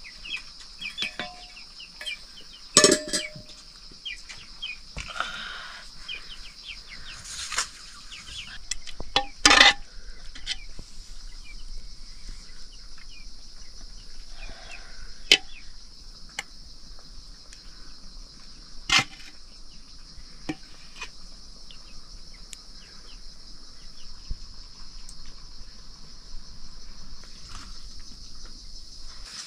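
Metal dishes and spoons clinking now and then, with a few sharp clanks, over a steady high chirring of crickets.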